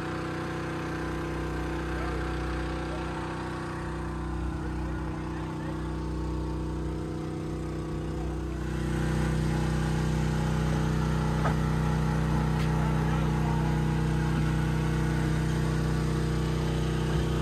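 Yanmar 4JH-45 four-cylinder marine diesel engine running steadily. About halfway through it gets louder, with a deeper tone coming in, as if the revs or load rise.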